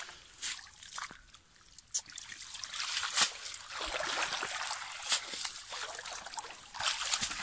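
A cast net being hauled out of shallow muddy water, water splashing and trickling off the wet mesh. A few sharp splashes at first, then from about two seconds in a steady, busier splashing.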